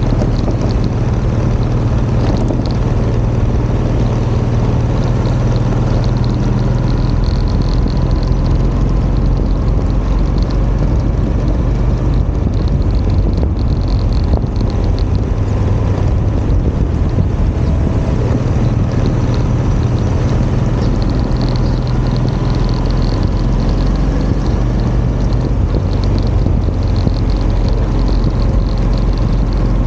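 Motorcycle engine running steadily under way, with wind and road noise on the camera's microphone.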